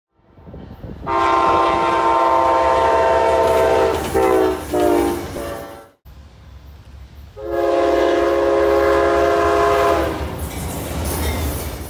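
Diesel locomotive's air horn sounding a chord of several notes: a long blast, then two short ones, over a low rumble. After a brief break near the middle, another long blast.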